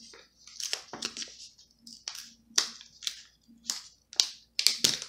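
Scissors snipping through a sticker sheet: a string of short, crisp, uneven cuts.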